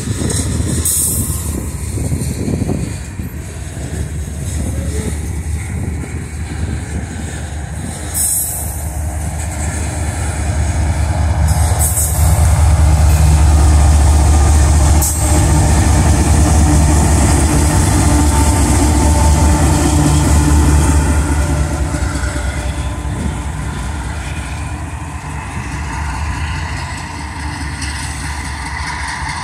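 Freight train passing on the rails: covered hopper cars rumble by, then the distributed-power diesel locomotives in the train go past with a loud, steady engine drone. The drone eases as the train pulls away near the end.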